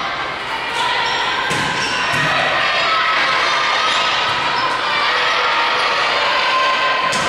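Volleyball rally in a gymnasium: the ball is struck twice, about one and a half and two seconds in, over a steady din of voices echoing around the hall.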